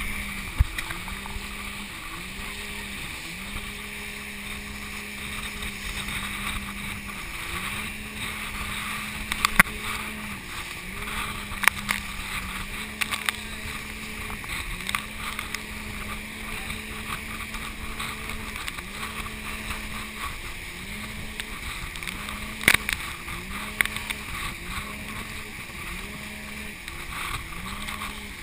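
Engine of the towing motorboat droning steadily, its pitch dipping briefly and recovering every second or two as the boat rides the chop. Behind it is an even rush of water and wind, and a few sharp knocks come through.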